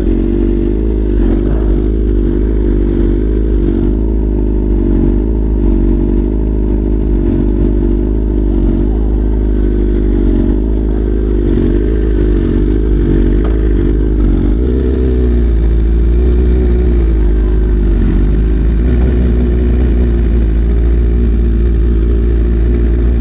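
Superbike engine running at low revs, its pitch rising and falling a little with the throttle, over a deep rumble that grows louder about two-thirds of the way through.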